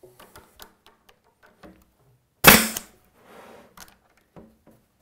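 A pneumatic stapler firing once, about two and a half seconds in, driving a 1¼-inch staple to tack a plywood cabinet part together. Faint taps and clicks from handling the parts come before and after it.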